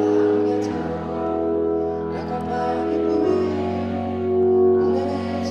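Live band playing a slow French chanson between sung lines: strummed acoustic guitar and keyboard holding sustained chords over bass notes that change twice.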